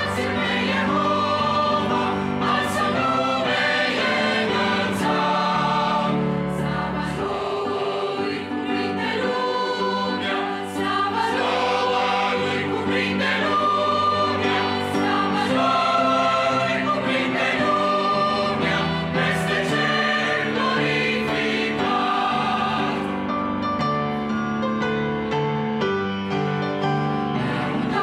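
Mixed choir of men's and women's voices singing a Romanian hymn in parts, with piano accompaniment.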